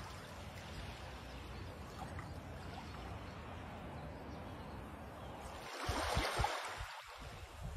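Sea waves washing on a shore, a steady wash with one wave surging up louder about two-thirds of the way through.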